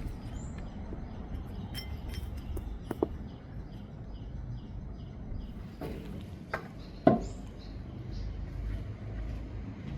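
A few sharp clinks and knocks, the loudest about seven seconds in, over a steady low engine rumble.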